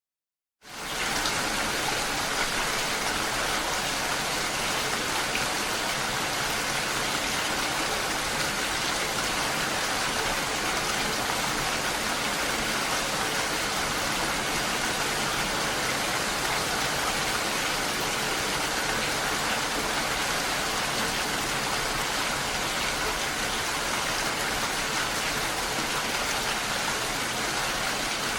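Steady heavy rain, an even hiss of falling drops that fades in quickly about half a second in and then holds level.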